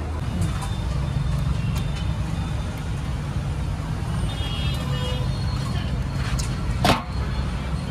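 Steady low engine hum of road traffic, with a motor vehicle running close by. There is a single sharp, loud sound about seven seconds in.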